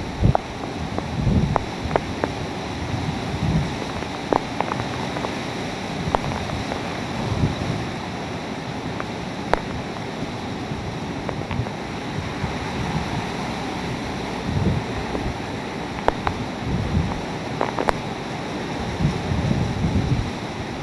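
Hurricane-force wind and heavy rain rushing steadily. Gusts swell now and then and buffet the microphone, with a few sharp ticks scattered through.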